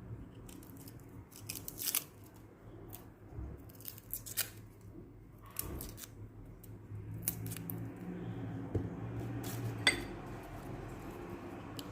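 Red garlic cloves being peeled by hand: irregular crisp clicks and short papery crackles of the dry skins coming apart, over a low steady hum.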